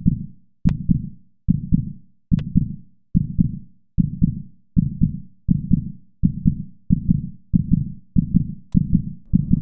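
Heartbeat sound effect: low doubled thumps, about one a second at first and quickening to nearly two a second. Sharp clicks ride on the first and third beats.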